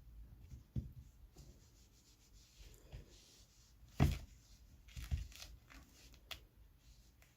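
Scattered rubbing and handling noises with a few soft knocks, the loudest knock about four seconds in.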